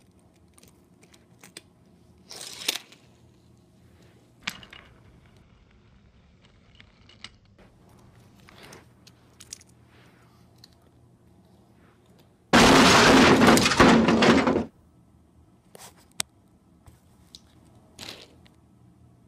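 Scattered small clicks and taps of plastic toy trains being handled on a plastic track. A little past halfway comes a loud crashing, breaking noise lasting about two seconds, for the toy engine and its trucks crashing.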